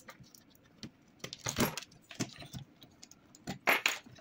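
Small metal printer parts clinking and rattling as they are handled, a string of short sharp clinks with the loudest near the end.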